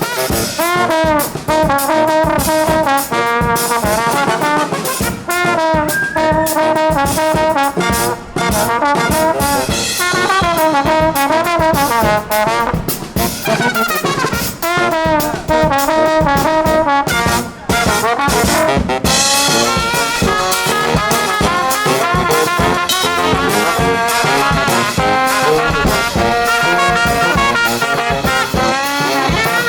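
A brass band playing an upbeat tune live: trumpets and trombones carry the melody over a steady drum beat.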